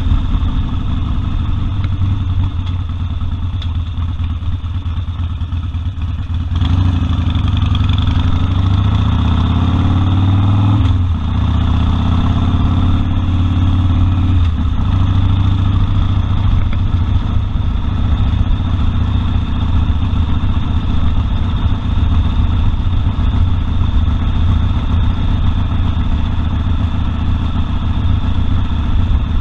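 Harley-Davidson Sportster 1200's air-cooled V-twin engine running at low revs, then accelerating. Its pitch climbs, drops briefly at a gear change, climbs again, then settles back to steady running.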